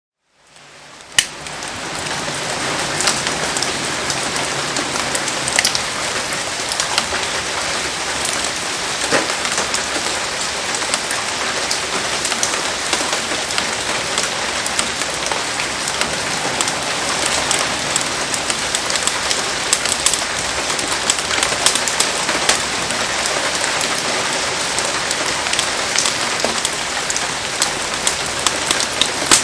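Heavy rain falling steadily, with many sharp drop hits ticking throughout; it fades in at the start, and a single loud click comes about a second in.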